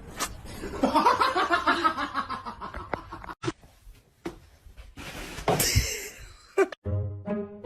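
A person laughing in quick rapid bursts, followed by a short, louder, noisier outburst. Near the end it cuts to light music with plucked strings.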